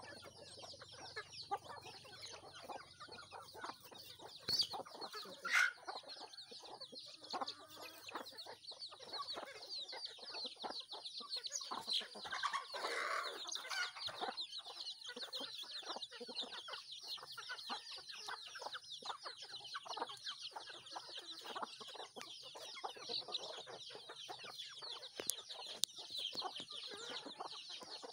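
Free-range chickens clucking as they peck at feed, over constant high peeping from chicks, with a louder call about five seconds in and another burst of calling a little before halfway.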